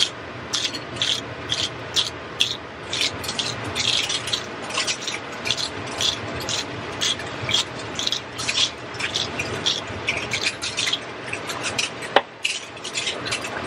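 Hand-twisted spice grinder being worked in a long run of short, raspy grinding strokes, about two to four a second, seasoning the pasta chips. A single sharp knock comes near the end.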